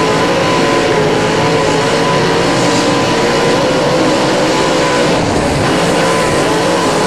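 Dirt late model race car V8 engines running at racing speed: a loud, steady drone whose pitch wavers slightly as the throttle comes on and off.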